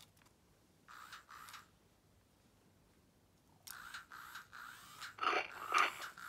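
FurReal Torch toy dragon's built-in sound unit playing short electronic creature calls through its small speaker: one brief call about a second in, then a longer string of calls from a little before the middle, loudest near the end.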